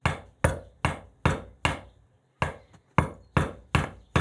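A run of about ten sharp knocks, roughly two and a half a second, with a brief pause after the fifth: the milled-open padlock is being rapped to jar a stuck pin loose from its chamber.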